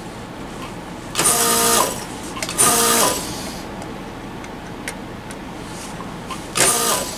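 Vacuum desoldering gun's pump running in three short bursts, each under a second: a motor hum with a rush of suction air as molten solder is drawn off circuit board joints. The bursts come about a second in, again at two and a half seconds, and near the end.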